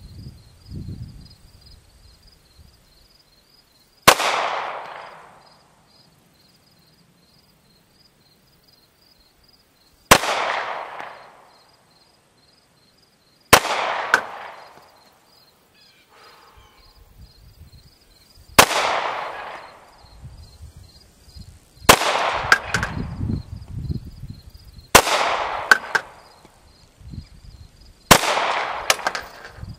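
Glock 19 9mm pistol firing seven single shots, the first few several seconds apart and the last ones about three seconds apart, each shot followed by a short echoing tail.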